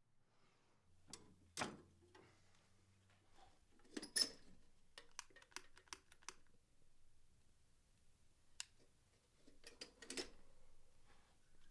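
Quiet, sparse light clicks and knocks from tools and a small iron workpiece being handled at the bench, with a quick run of small ticks about five seconds in.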